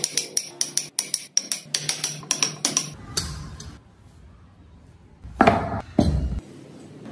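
Wooden mallet striking a steel chisel into hardwood in quick sharp knocks, about five a second, for the first three seconds. Near the end come two louder wooden knocks as a carved wooden block is set down on another on the workbench.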